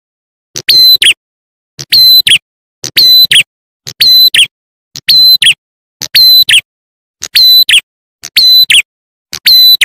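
Repeated lure call of the prenjak atas (ciblek klawu), a small songbird, played as a loop. Each shrill phrase, about once a second, has a short lead note, a steady high whistle and a quick falling sweep, with silence between phrases.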